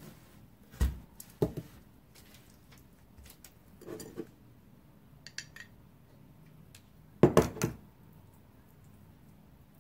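Metal spoon clinking against kitchenware while tomato sauce is spread over a pizza crust: two sharp clinks about a second in, a duller knock around four seconds, and a louder quick cluster of clinks near the end.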